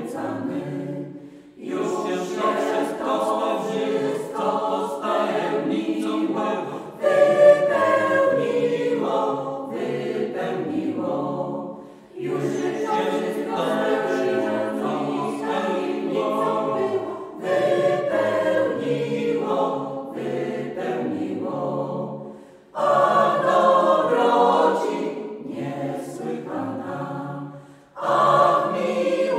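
Mixed four-part choir (sopranos, altos, tenors, basses) singing a Polish Christmas carol in sustained phrases, with brief breaks between the lines.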